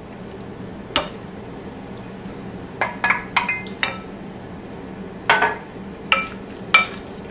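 A wooden spoon stirring a chopped shrimp and vegetable mixture in a glass bowl: short knocks and clinks against the glass, some with a brief ring, coming in two clusters about three and five seconds in, after a single knock about a second in.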